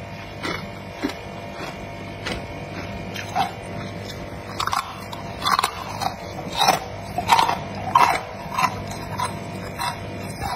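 Freezer frost being crunched between the teeth: irregular crisp crunches, about two a second, growing louder from about four seconds in, over a steady low hum.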